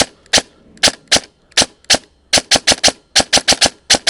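Upgraded Saigo Ronin airsoft electric rifle dry-fired on semi-auto with no BBs loaded: a string of sharp single shots, spaced out at first, then rapid trigger pulls about six or seven a second in the second half.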